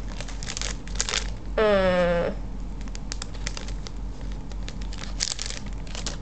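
Clear plastic bag crinkling in scattered crackles as it is handled. About one and a half seconds in, a short wordless vocal sound, a held tone falling slightly in pitch, is the loudest thing.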